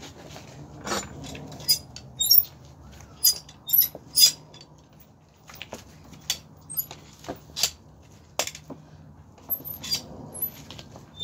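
Irregular sharp snaps and scrapes of a hand tool cutting into an overgrown draft horse hoof. There are about a dozen strokes, and the loudest come between two and four and a half seconds in.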